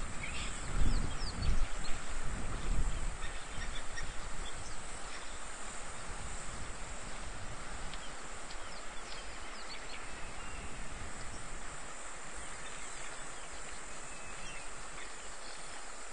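Outdoor natural ambience: scattered short bird calls over a steady high hiss, with a few low rumbles in the first three seconds.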